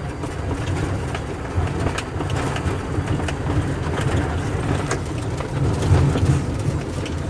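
Ford Cargo 2628 dump truck's diesel engine running steadily as it drives over a rough gravel dirt road, heard inside the cab, with many short rattles and knocks from the cab over the bumps.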